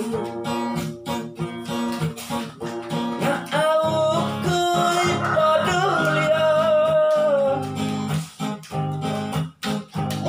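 A man singing while strumming an acoustic guitar, holding long notes in the middle; the playing and singing break off briefly a couple of times near the end.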